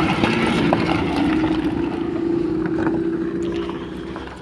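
A vehicle engine running with a steady drone, fading away near the end.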